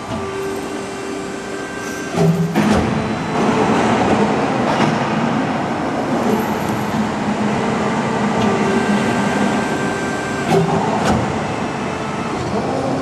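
Hydraulic press brake running: a steady mechanical hum and hiss with faint whining tones. It grows louder after a sharp clunk about two seconds in, with a few more clicks and clunks later.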